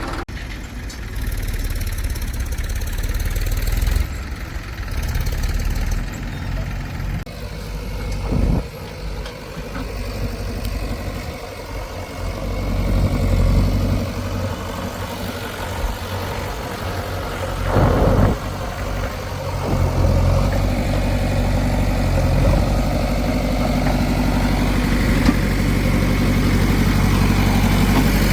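Heavy diesel machinery engine running, with two brief surges and a louder, steadier hum for the last third.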